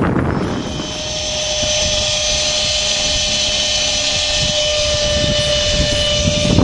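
Radio-controlled model airplane's motor running with a steady high whine that comes in about half a second in and holds, over wind rumbling on the microphone.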